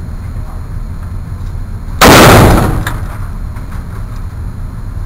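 A single shot from an AK-47 rifle (7.62×39mm) about two seconds in, loud enough to overload the recording, echoing off the indoor range for about a second before dying away.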